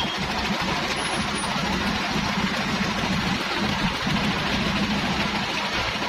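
Engine of a concrete mixer and lift hoist running steadily.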